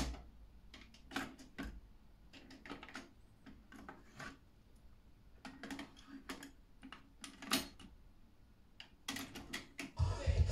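Plastic clicks and clatter of a Technics RS-TR333 double cassette deck being handled: transport buttons pressed, a cassette door popping open, a tape cassette taken out and pushed into the other deck, doors snapped shut. Music starts playing from the deck near the end.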